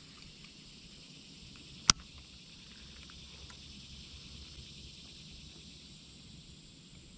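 Steady high-pitched chirring of an insect chorus, typical of crickets. A single sharp click comes about two seconds in.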